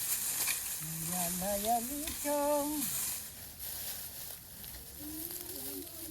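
Dry harvested crop stalks rustling and crackling as they are handled and bundled. A voice sings a few drawn-out notes over it.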